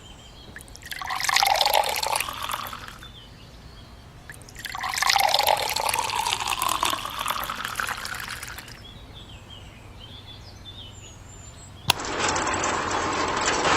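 Water being poured in two spells, one of about two seconds and a longer one of about four seconds. Near the end, a sharp click, then a steady hiss-like noise begins.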